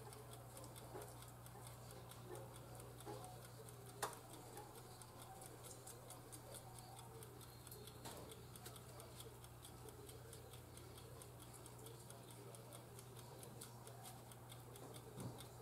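Near silence: faint ticking and soft rattles from a tin of Old Bay seasoning being shaken out, with one sharper click about four seconds in, over a faint steady low hum.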